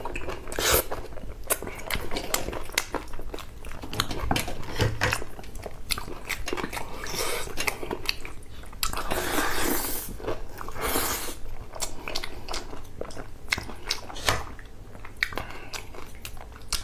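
Close-miked wet chewing and biting of saucy braised meat, with many sharp lip smacks and clicks and some louder slurping stretches.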